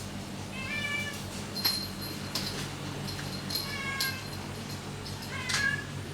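Domestic cat meowing three times in short high calls, over a steady low hum.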